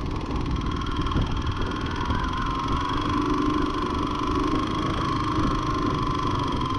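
250 cc single-cylinder dual-sport motorcycle engine running at a steady low speed, its note holding almost level, over a low rumble of wind and road noise on the microphone.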